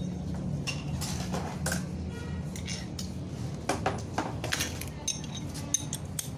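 Metal tools and parts being handled on a workbench: a string of sharp metallic clinks and taps, busiest around the middle, over a steady low hum.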